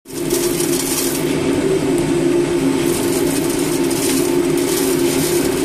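Oil curtain snack fryer running: a steady machine hum with an even hiss layered over it.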